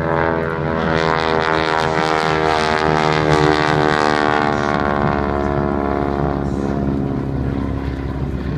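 Boeing Stearman biplane's radial engine and propeller in a fly-by: a steady buzzing drone that is loudest about three seconds in, then falls slowly in pitch and fades as the plane moves away.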